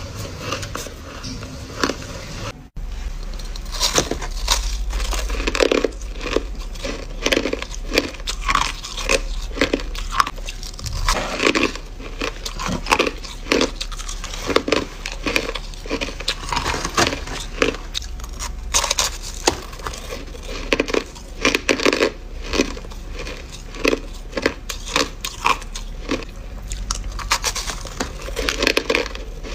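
Crushed ice being bitten and chewed: a long, irregular run of sharp, crisp crunches, several every couple of seconds.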